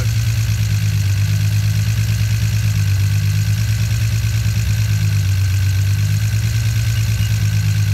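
Turbocharged car engine idling steadily at full operating temperature, heard up close over the open engine bay.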